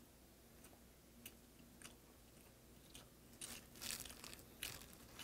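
Faint chewing of braised pork trotters (jokbal), with wet smacks and clicks, louder in a short run of smacks about three and a half to four and a half seconds in.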